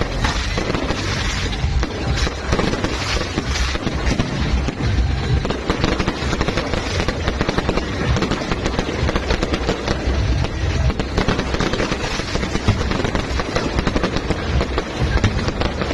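Fireworks going off in a rapid, continuous barrage of bangs and crackles.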